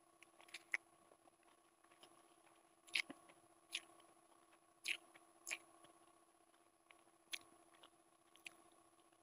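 Close-miked eating of instant noodles: quiet chewing and slurping with about eight short, sharp wet smacks and clicks spread through, over a faint steady hum.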